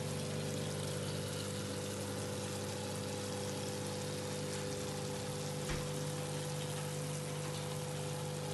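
Stuffed bitter gourds cooking in oil and masala in a pot, sizzling with a steady hiss, over a steady low hum; a single knock about six seconds in.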